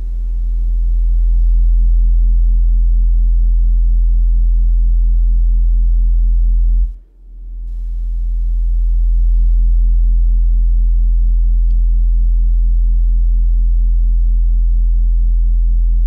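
Car-audio subwoofers playing a 42 Hz sine test tone at high level inside the car's cabin. The meter reads about 118.5 dB. The tone cuts out briefly about seven seconds in, then returns and swells back to full level over a second or two.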